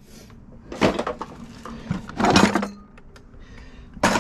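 Kitchen utensils clattering as a drawer is emptied by hand, in three separate bursts of rattling, with a sharp knock near the end.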